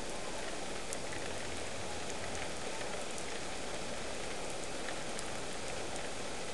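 Rain falling steadily, with scattered sharp ticks of drops striking close by.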